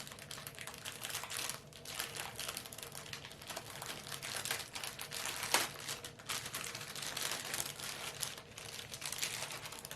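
Plastic packaging of paint-by-number paint palettes crinkling and rustling as it is handled, with a sharp snap about five and a half seconds in.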